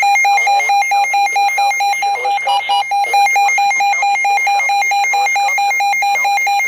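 Emergency Alert System alert tone sounding loudly for a severe thunderstorm warning: a steady electronic tone broken by short, evenly spaced gaps several times a second.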